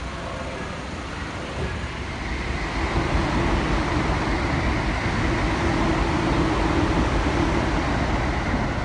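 Small city bus driving close past, its engine growing louder about two seconds in and then running loud and steady.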